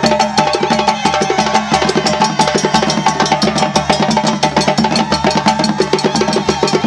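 Several djembes and other hand drums played together by an ensemble in a fast, driving West African rhythm, with dense, rapid strokes throughout.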